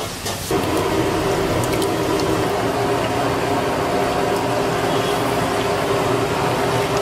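Steady machine hum with several held tones, coming in suddenly about half a second in.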